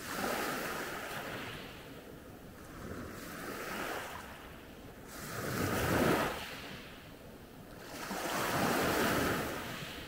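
Small sea waves breaking and washing up a pebble beach, in four surges a few seconds apart. The third surge, about six seconds in, is the loudest.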